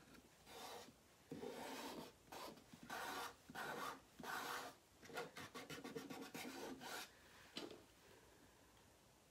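Faint strokes of hands rubbing an adhesive silkscreen transfer down onto a wooden sign board. The strokes are long at first, then become a quick run of short strokes a little past halfway.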